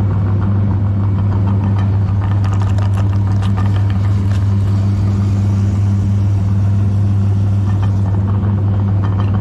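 Electric meat grinder motor running with a loud, steady hum and scattered light crackling, the sound of Oreo cookies being ground.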